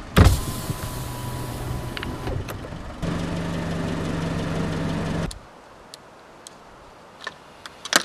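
A car's engine runs as an electric power window motor hums steadily for about two seconds, then stops abruptly; a few faint clicks follow.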